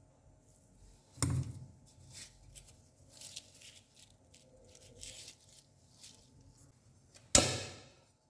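Objects being handled: a sharp knock about a second in and a louder knock near the end, with short scraping and rustling sounds in between.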